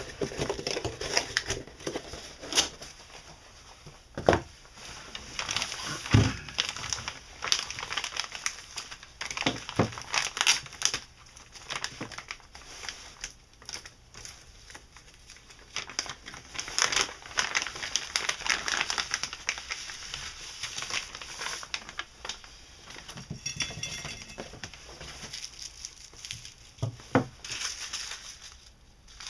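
Packaging wrap crinkling and rustling in irregular bursts as it is handled, with a few dull knocks.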